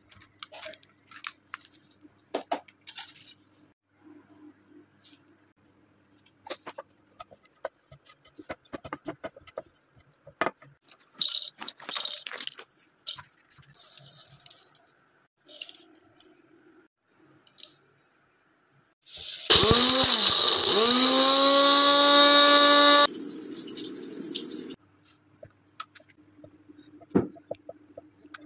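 Electric blender jar grinding cumin seeds in one short run of about three to four seconds. The motor spins up with a rising whine, holds steady, then drops to a quieter tail. Scattered light clicks and taps of kitchen utensils come before and after.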